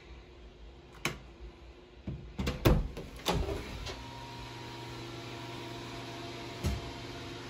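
A light switch clicks about a second in, then a door handle and latch rattle and a closet door knocks as it swings open. Once the door is open, a steady low electrical hum comes from the egg-incubation closet, with one more knock near the end.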